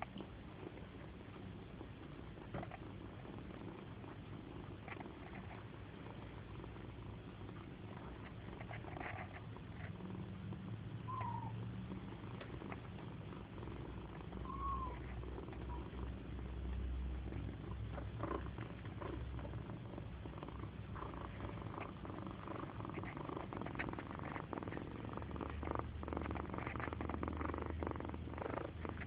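Domestic cat purring steadily at close range, the purr growing louder toward the end, with two brief high squeaks along the way and light rustling of fur.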